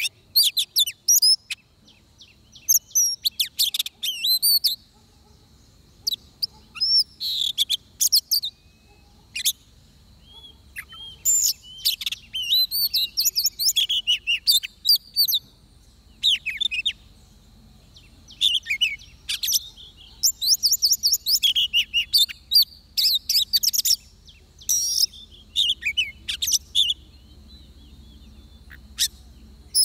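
Oriental magpie-robin singing: a varied, whistled song of quick rising and falling notes in clustered phrases with short pauses between, the decoy-and-wild-bird singing used to lure a magpie-robin into a trap. A faint steady high whine runs underneath.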